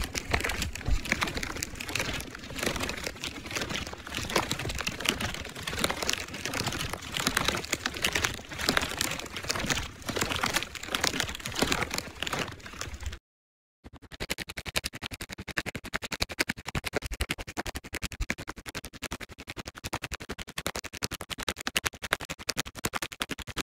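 Plastic rattle shaken, its beads clicking in dense, irregular bursts and passed through a voice changer effect; it stops briefly about 13 seconds in, then resumes with faster, more even shaking.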